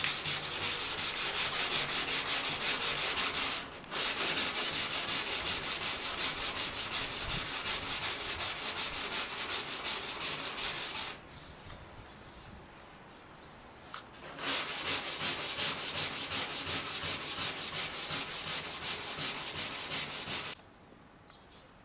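Fibreglass canoe hull being hand-sanded with a soft foam block wrapped in 100-grit sandpaper to fair cured resin repairs: quick, even back-and-forth strokes. They come in three spells, with a short break about three and a half seconds in and a longer one from about 11 to 14 seconds, and stop shortly before the end.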